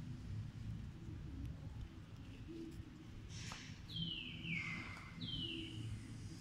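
A bird calls twice in the second half: short whistled notes that fall in pitch, over a low, steady background rumble.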